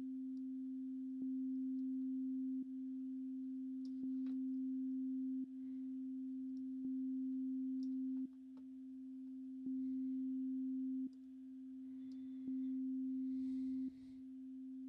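A steady, low, pure test tone re-struck with a click about every second and a half, run through a downward compressor whose release time is being raised. At first each note holds level; later each note is ducked at its start and swells slowly back up, a pumping effect from the long release time.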